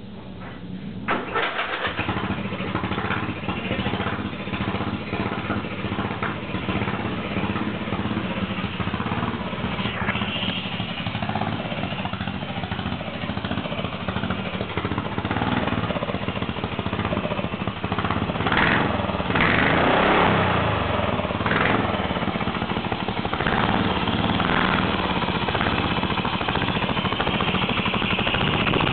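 Lawn mower engine fitted with a home-made turbocharger starting about a second in, then running steadily, briefly louder about two-thirds of the way through.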